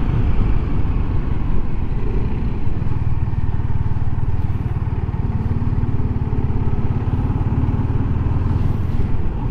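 Steady low wind rush over a full-face helmet, picked up by a microphone inside it with the visor closed, with a Yamaha XSR155's single-cylinder engine running underneath while riding.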